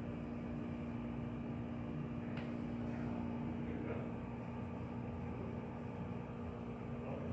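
Steady machine hum with a constant tone, and a few faint ticks.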